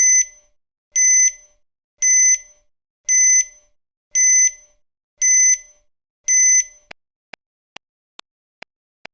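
Electronic countdown-timer beeping: seven short, high, ringing beeps about once a second. About seven seconds in, a quieter, faster ticking takes over, a little over two ticks a second.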